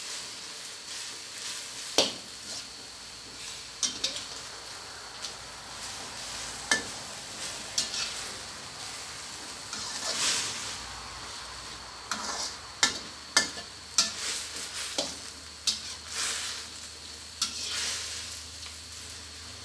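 Water spinach and sesbania flowers sizzling in oil and fish sauce in a steel wok, with steady frying hiss. A spatula stirs and tosses them, scraping and clacking against the pan every second or few.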